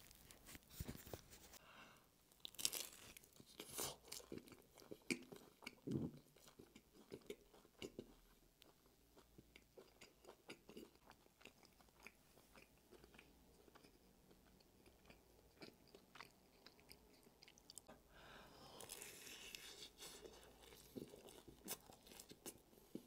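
Faint handling noise as a clip-on microphone is fastened to a hoodie: small knocks and rustles. Near the end comes a crunchy bite into baked pizza crust, followed by chewing.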